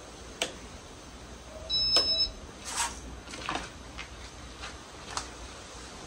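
A short two-tone electronic beep about two seconds in, the loudest sound, with a string of sharp clicks before and after it over a steady low hum and hiss.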